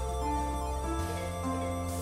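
Live instrumental music from electric guitar and keyboard, slow held notes overlapping; the bass moves to a new note about a second in.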